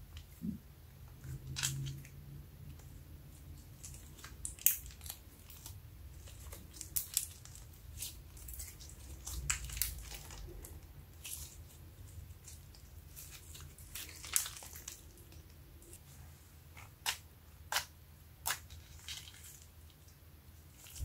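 Slime being kneaded, squeezed and stretched by hand, giving irregular wet crackles and small pops, a few of them louder than the rest.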